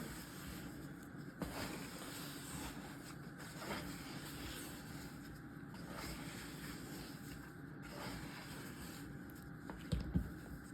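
Faint handling sounds of hands stretching and shaping sticky sourdough dough on a counter, with a couple of faint clicks and a few soft thumps near the end, over a steady low hiss.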